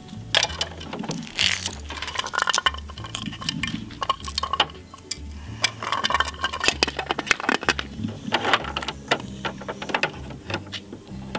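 Rapid plastic clicks and clatter of the Bruder toy recycling truck's ABS plastic bins and lifter being handled on concrete, over background music with a stepping bass line.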